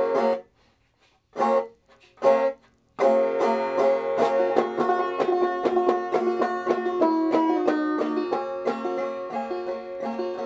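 Five-string banjo in open G tuning, tuned down a half step, played clawhammer style. Three short strums of the open strings come first, then about three seconds in a steady run of quickly picked notes of the opening melody lick begins.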